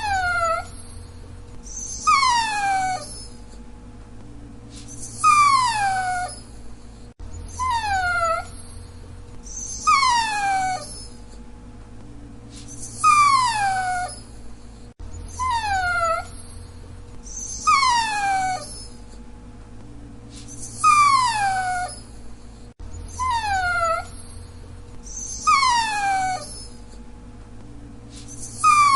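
Dachshund whining: repeated high, drawn-out whines that slide down in pitch, each about a second long, coming every two to three seconds.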